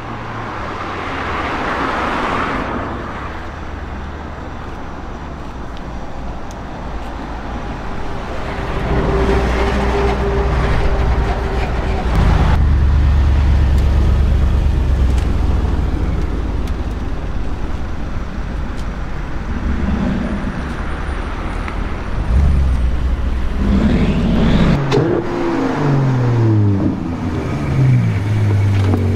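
Road traffic: vehicles driving past with a steady engine rumble, including a box truck about ten seconds in. Near the end a car's engine note climbs and drops several times in quick succession as it accelerates.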